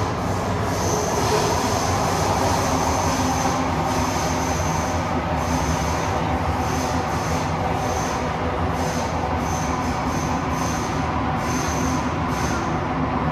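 Metro train running, heard from inside the car: a steady rolling rumble with a high-pitched wheel squeal that comes and goes repeatedly.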